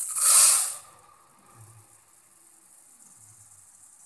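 Raw rice poured into an empty stainless steel bowl: a loud rushing hiss of grains striking the bare steel. It ends suddenly within the first second and turns much fainter as the rice lands on the growing heap.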